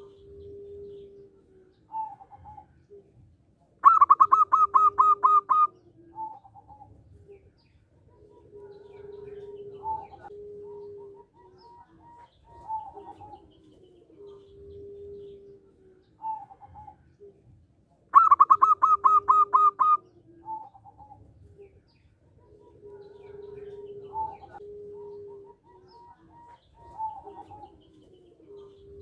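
Local zebra dove (perkutut) singing. Twice, about fourteen seconds apart, it gives a loud run of about ten quick, evenly spaced notes, with softer repeated coos and short call notes in between.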